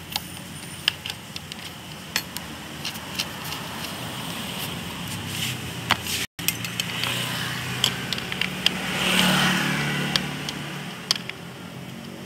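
Scattered sharp clicks and knocks of metal parts and tools as a sewing-machine motor is bolted onto its mount under the table. Under them runs a steady low engine-like hum that swells around nine seconds in. The sound cuts out completely for a moment a little after six seconds.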